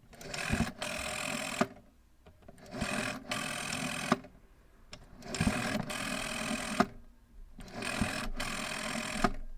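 Old rotary telephone dial being turned and let go four times. Each time it spins back with a whirring, clicking run of about a second and a half that ends in a click.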